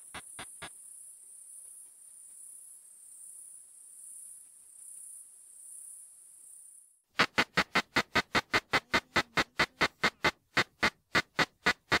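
Ultrasonic calling song of a male Tettigoniopsis ehimensis katydid, made audible through a bat detector: a regular train of short, sharp pulses at about five a second. A first run of pulses stops just after the start, faint hiss follows, and a louder run begins about seven seconds in.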